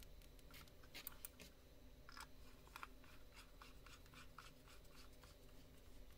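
Faint, irregular clicks and scratches of a small screwdriver turning screws into the plastic underside of a computer mouse to close its housing.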